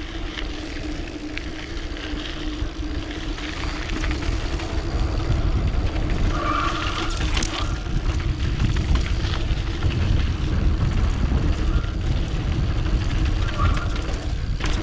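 Mountain bike running downhill on a dirt trail, heard through an action camera: wind buffeting the microphone and tyres rumbling over the dirt, with a steady hum underneath. Two brief squeaks come about six seconds in and again near the end.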